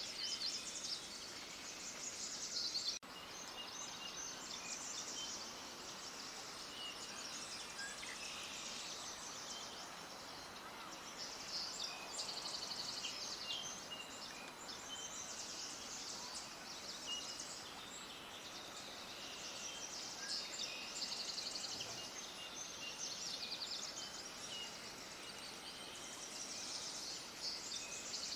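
A chorus of many small birds chirping at once, a dense, continuous run of high, rapid chirps, with a brief click and dropout about three seconds in.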